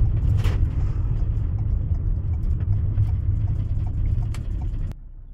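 Low road and engine rumble inside a moving car's cabin, which drops suddenly to a much quieter hum near the end.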